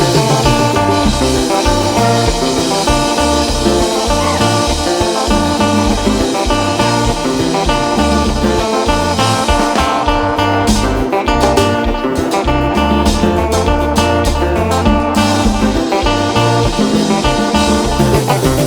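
Live band playing an instrumental passage, with a plucked guitar line over bass and drums.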